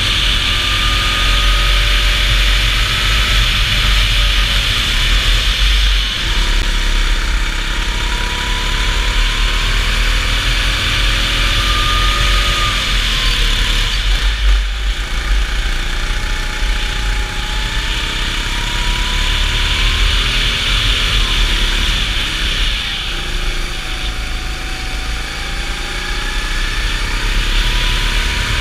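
Go-kart engine heard from onboard the kart, revving up along the straights and dropping in pitch as the driver lifts for the corners, with a deeper drop about halfway through. A steady low rumble and hiss run underneath.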